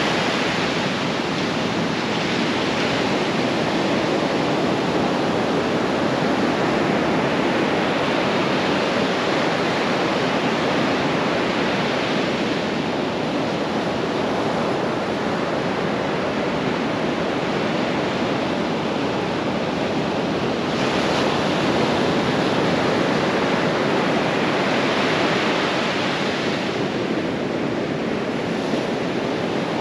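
Ocean surf breaking and washing up a sandy beach: a steady rush of waves that swells now and then as a wave comes in.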